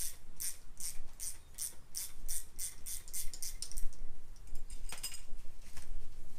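Metal wrench clicking rapidly, about three or four clicks a second, while the 13 mm nut on the strut's top mount is being unscrewed; the clicking stops about four seconds in, then a few more clicks come near the end.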